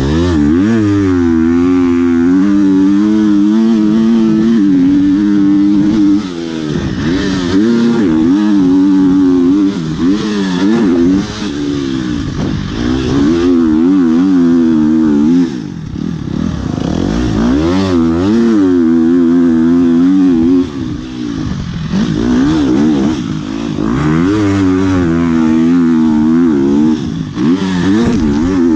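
KTM motocross bike's engine revving hard and rising in pitch under throttle, shut off briefly about every five seconds and then opened up again.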